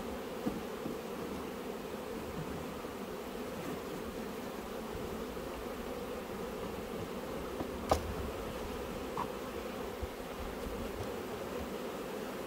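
Honeybees buzzing steadily around an opened hive, with one sharp click about eight seconds in.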